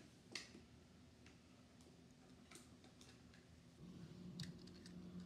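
Near silence with a few faint, scattered ticks and light clicks; a faint low hum comes in about four seconds in.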